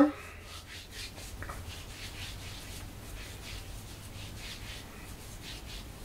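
Fingers rubbing and working curl cream through curly hair: soft, repeated rubbing strokes, about two a second.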